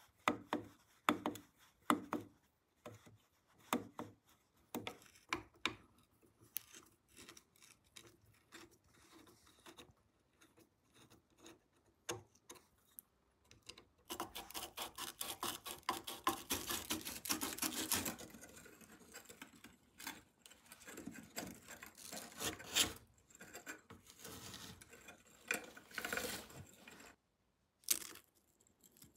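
Screwdriver turning out small screws from an old soldering iron's wooden handle, with clicks and small knocks of the metal parts being handled. About halfway through comes a few seconds of rapid scraping.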